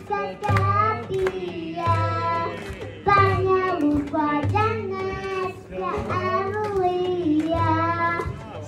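A young girl sings a Bosnian ilahija (devotional song) through a microphone and PA, her melody gliding between held notes, with a frame drum keeping a steady beat about once a second.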